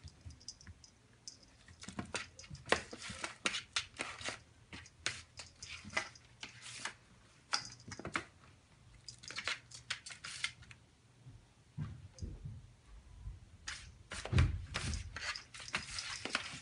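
A kitten pawing at a plastic box with a ball in it and sliding the box across a wooden floor: irregular clicks, rattles and short scrapes, with a few duller knocks in the second half.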